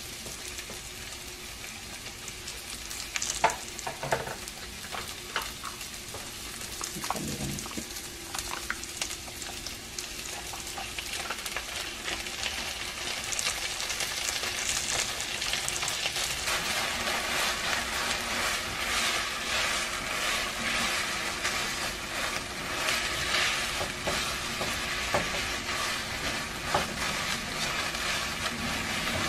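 Spaghetti sizzling in olive oil in a frying pan, with scattered clicks and scrapes. About halfway through the sizzle grows louder as meat sauce goes onto the noodles and a silicone spatula stirs and tosses them.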